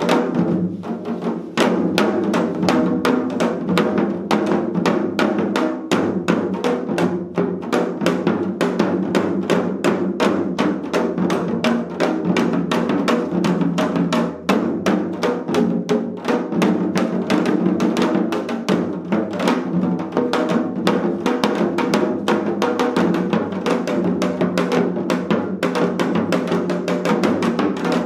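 Four janggu (Korean hourglass drums) played together in seoljanggu style: rapid, dense strokes in a driving rhythm, with a brief break about fourteen seconds in.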